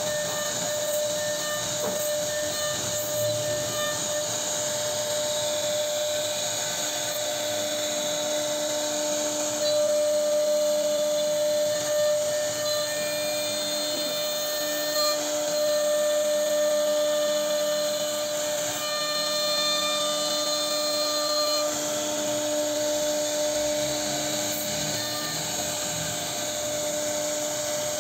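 CNC router spindle running with a small carving bit cutting a relief design into a wooden board: a steady high whine over the noise of the cut.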